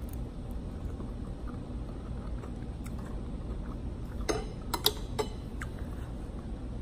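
Chewing with the mouth closed over a steady low hum, then three or four quick clinks a little over four seconds in as a metal spoon and fork are laid down on a ceramic plate.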